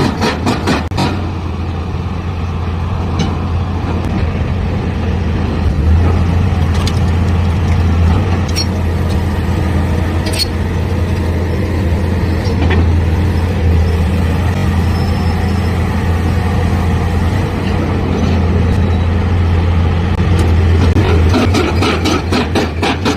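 Heavy diesel engine of a deep-hole drilling rig running steadily with a deep low hum, with a few sharp metallic clicks.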